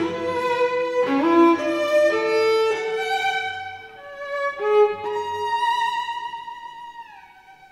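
Cello playing held, bowed notes, several at a time, then sliding down in pitch about seven seconds in and fading away.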